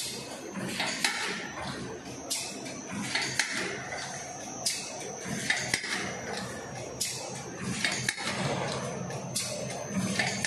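Paper cake tray forming machine running, its mechanism clacking sharply about once a second over a steady mechanical clatter, with a faint steady high whine.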